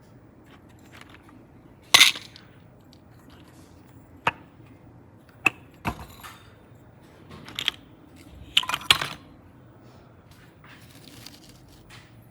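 Small hard objects clicking and clattering as they are handled and set down: single sharp clicks spaced a second or two apart, a quick cluster of clatters about nine seconds in, then a soft rustle near the end.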